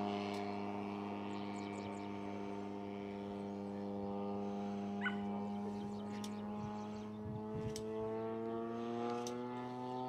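Large-scale RC Sea Fury model airplane's engine and propeller droning steadily in flight, the pitch rising slightly in the second half. A brief chirp sounds about five seconds in.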